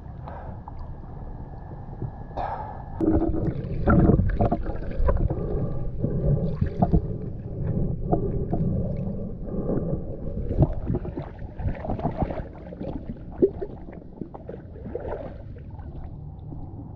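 Muffled water movement and gurgling around a camera in a river, with irregular knocks and sloshes, busiest through the middle.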